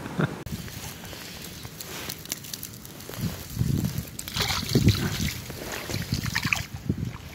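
A small river's water running and sloshing, with wind buffeting the microphone in irregular low gusts.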